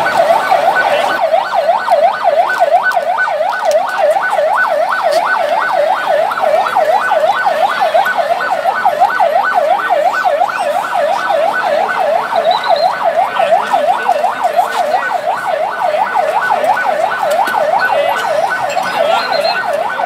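Electronic siren in a fast yelp pattern: a single tone sweeping up and down about four times a second, steady and unbroken.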